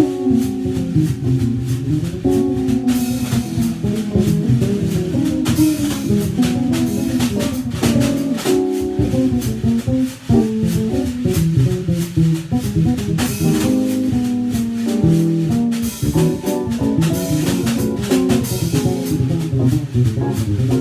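Jazz trio of keyboard, bass and drum kit playing an instrumental tune, with a steady groove and cymbal accents.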